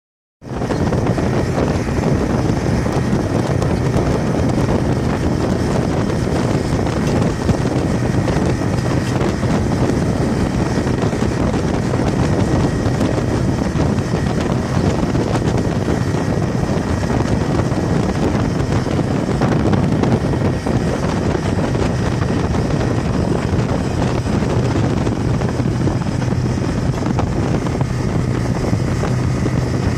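Yamaha 150 outboard motor running steadily at speed, a constant low hum under heavy wind rushing over the microphone.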